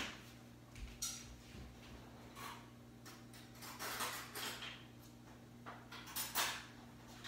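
Off-camera clatter of dishes being fetched: scattered knocks, clicks and short scrapes, the loudest about four seconds in and again near the end, over a steady low hum.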